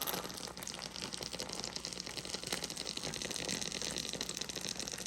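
Pot of chicken and dumplings bubbling at a simmer, a steady fine crackling bubble.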